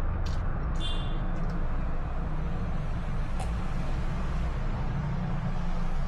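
Steady low background rumble with a few faint clicks scattered through it, and a brief high chirp about a second in.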